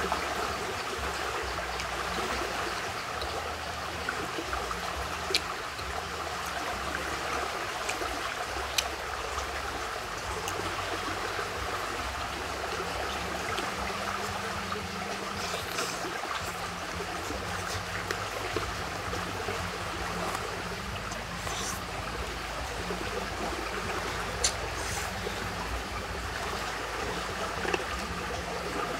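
Steady trickling and rushing of a small stream, with a few single sharp clicks over it.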